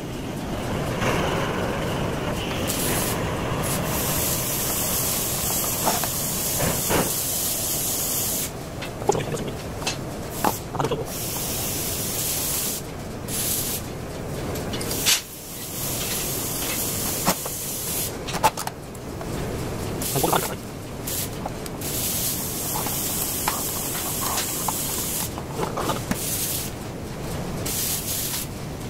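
A steady hiss that drops out briefly several times, with scattered clicks and knocks of parts being handled.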